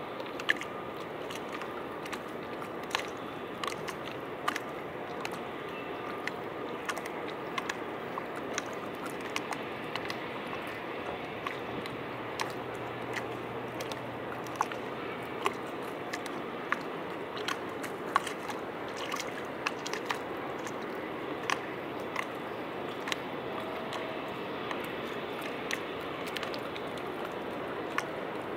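Small waves lapping against harbour quay steps: a steady wash of water with many sharp, irregular clicks and pops.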